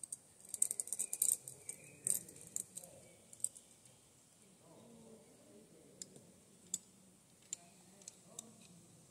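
Faint metallic clinking of climbing gear: carabiners and quickdraws on a climber's harness and the rope. A quick flurry of clicks for the first few seconds, then a few single clicks spaced out.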